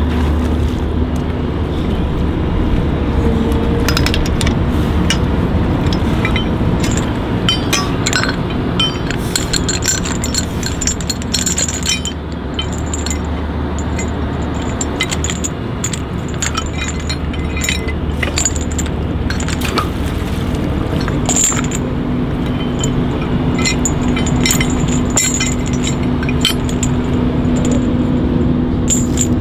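Heavy steel towing chain clinking and scraping as it is hauled and handled, in many short sharp clinks, thickest through the middle, over a steady engine drone.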